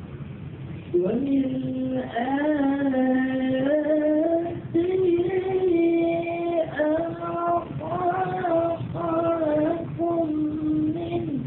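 A young man's solo voice chanting in long, drawn-out sung phrases into a microphone. The notes are held and bend gently, with short breaks between phrases. It begins about a second in.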